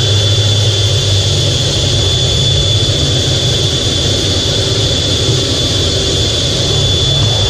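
F/A-18 Hornet's twin jet engines and rushing air heard from inside the cockpit: a steady roar with a constant high whine over it.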